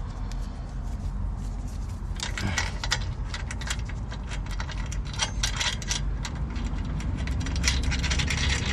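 Small metal hardware and tools clicking and clinking: nuts, washers and a socket being worked onto the sway bar mounting bolts. Irregular sharp clicks start about two seconds in and run on in clusters over a low steady rumble.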